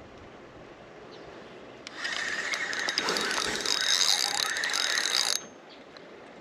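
Fishing reel being cranked to bring in line: a fast, even clicking whir that starts about two seconds in and stops abruptly a little after five seconds.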